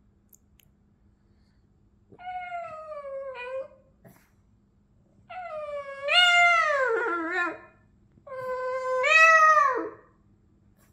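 Boston terrier singing: three drawn-out, howling calls that slide in pitch, the second and third louder than the first.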